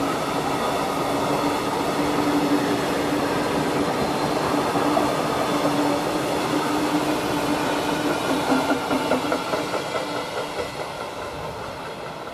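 A container freight train's loaded wagons rolling past, wheels rumbling and clattering on the rails with a steady tone running under the noise. The sound fades over the last few seconds as the end of the train draws away, then cuts off suddenly.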